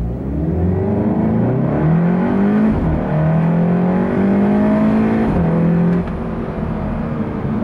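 SEAT Leon Cupra 300's turbocharged 2.0-litre four-cylinder pulling hard under full throttle in a launch with traction control off. The engine note rises, drops with an upshift about two and a half seconds in, and rises again to a second upshift a little after five seconds. The level falls about six seconds in as the throttle is lifted.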